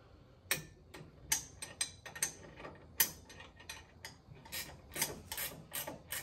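Socket ratchet clicking in short, irregular strokes, about two or three clicks a second, on the upper ball joint nut. The ball joint stud is spinning with the nut, so it won't tighten.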